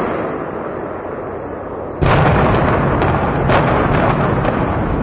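Large explosions. The tail of one blast fades at the start. About two seconds in a sudden heavy boom sets off deep rumbling, with a sharp crack a second and a half later and a few smaller pops.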